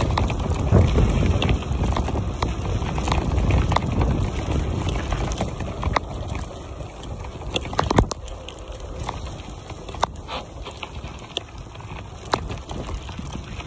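Wind buffeting the microphone as a bicycle rolls over a gravel road, with scattered clicks and knocks as the bike rattles over stones. The wind noise eases after about six seconds.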